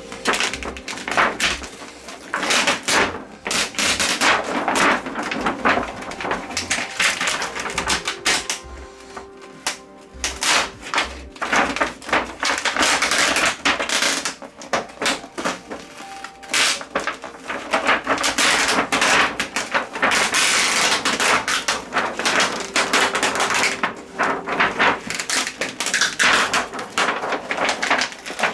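A sheet of white reflector paper inside an LED TV being slowly pulled off its glue and handled, a dense run of irregular crackling and crinkling. It eases off for a few seconds about a third of the way in.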